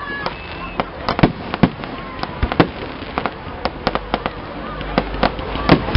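Fireworks display: aerial shells going off in a rapid, irregular series of sharp bangs and crackles, several a second.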